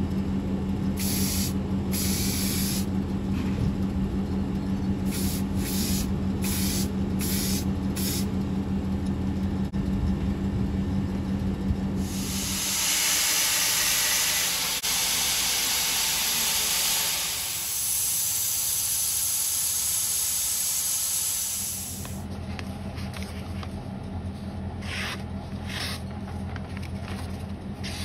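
Workshop electric motor humming steadily, with light scraping strokes. About twelve seconds in, a steel knife blade is held against a running belt grinder, making a steady hiss for about ten seconds as the edge is ground and honed. Then the motor hum returns, with a few short slicing strokes through paper near the end as the edge is tested.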